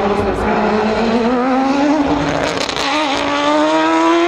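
Mazda 787B's R26B four-rotor rotary engine accelerating hard, its pitch climbing, with a short dip about three seconds in before it climbs again.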